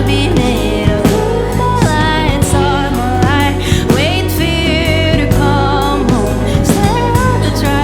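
Live band playing an indie-folk song: steady bass, regular drum hits, and a wavering sung melody with vibrato.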